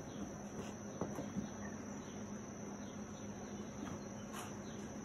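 Steady high-pitched drone of insects singing, with a faint low hum beneath it. A few soft taps come from two kittens tussling against the shoes and rubber boots.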